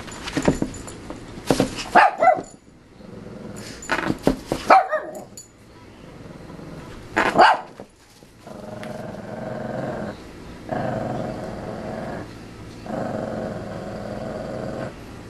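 Small dog barking in sharp yaps for the first several seconds, then growling in three long stretches.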